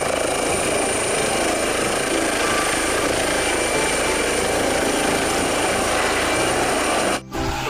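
Eurocopter EC135 air ambulance helicopter lifting off and climbing away: steady rotor noise with a high turbine whine. It cuts off abruptly near the end.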